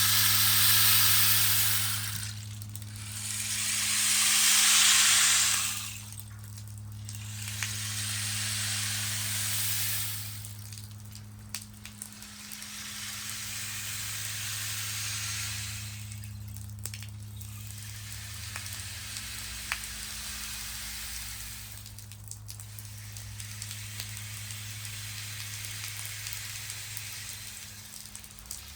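Sound-bath soundscape: a series of soft hissing swells, each rising and fading over a few seconds, over a steady low drone. The first two swells are the loudest.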